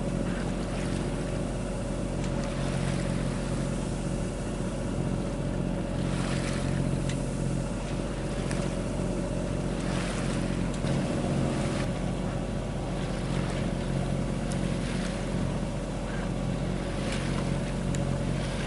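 A sailboat's inboard diesel engine running at a steady cruising speed under way, with the occasional wash of water along the hull.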